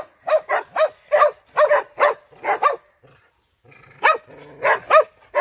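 Sarail hound, a lean tan sighthound, barking repeatedly: about a dozen short, sharp barks, many in quick pairs, with a pause of about a second after the middle.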